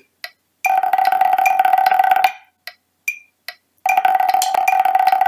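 Snare drumsticks on a rubber practice pad: a tap, then a long fast roll, a few single strokes, and a second long roll. The rolls ring with a steady pitch.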